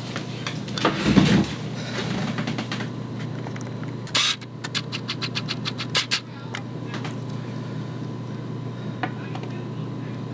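Handling noise: a dull knock about a second in, then a run of sharp clicks and knocks with two louder ones around the middle, over a steady low hum.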